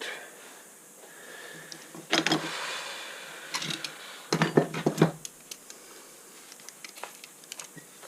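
Hands working the frayed end of a fiberglass stove door gasket and its whipping thread: two spells of rustling and small clicks, about 2 s and 4.5 s in, with soft handling noise between.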